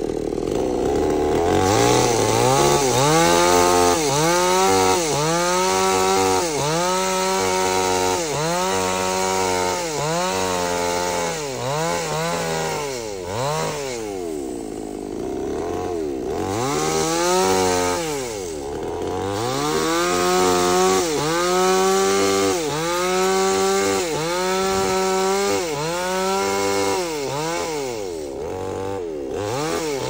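An engine revving up and down over and over, about once a second, with a short lull around the middle.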